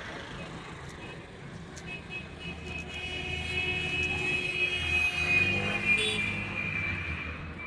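A motor vehicle passing close by on the road: an engine rumble with a steady high whine that swells to its loudest a little past the middle, then fades.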